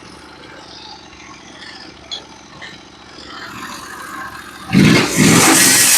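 Norwood HD36v2 band sawmill's gas engine running low and steady with a few light knocks, then rising and, about three-quarters of the way through, suddenly revving up loudly as the band is driven into the log to start a cut.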